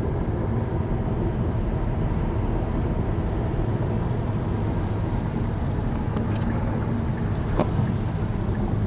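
Steady road and engine noise of a car driving at speed on a highway, heard from inside the car.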